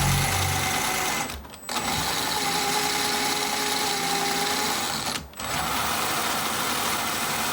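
Electric motor and gear drivetrain of a 1/10 scale SCX10 III RC crawler running at speed with a steady whir. It stops briefly twice and spins up again each time.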